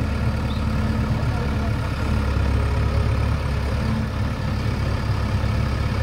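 JCB backhoe loader's diesel engine running steadily at a constant, low engine note while its front loader holds a concrete culvert pipe.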